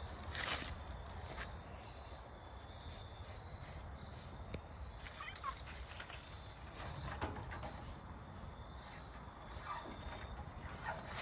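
Cat scampering through grass and dry leaves, light rustling with scattered small clicks, over a steady high insect drone. A few short calls come about five, seven and ten seconds in.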